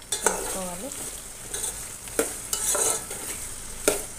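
A metal spoon stirs chopped ivy gourd in a metal pot of hot oil, scraping and knocking sharply against the pot a few times, over the sizzle of the frying pieces.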